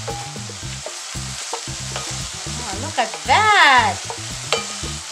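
Cubed pork sizzling as it browns in a hot saucepan without oil, its fat rendering out, while a wooden spoon stirs and scrapes it around the pan. Just past the middle comes a short, loud squeak that rises and falls in pitch.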